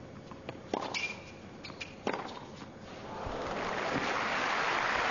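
Tennis ball struck by rackets in a rally on a hard court, a couple of sharp pocks a second or so apart with a brief shoe squeak between them. Then crowd applause swells from about three seconds in as the point ends.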